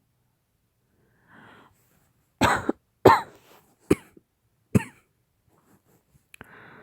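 A woman coughing hard, four coughs spread over about two and a half seconds, the first two the longest and loudest, with a breath drawn before them and another faint breath near the end. The cough is acted as a lingering cough after COVID.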